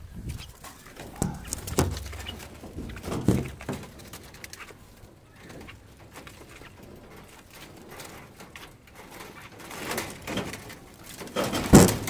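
Doves cooing, with knocks and rattles from a wire-mesh bird trap being handled, and one loud clatter near the end.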